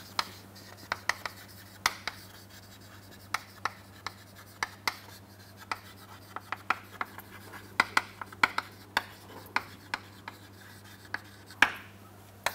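Chalk writing on a chalkboard: irregular taps and short scratchy strokes as words are written out, over a faint steady low hum.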